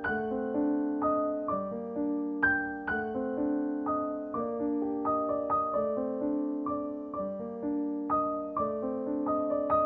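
Background music: a gentle piano melody, notes struck about twice a second and left to ring and fade.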